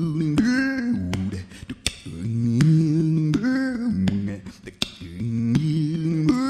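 Background music: a vocal line of held and gliding notes over sharp percussive clicks, in repeating phrases.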